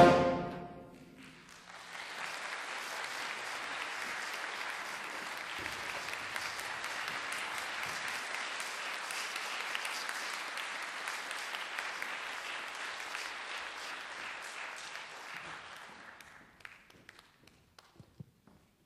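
A wind band's final brass chord dying away in the hall, then audience applause that starts about a second and a half in, runs steadily, and fades out near the end with a few last claps.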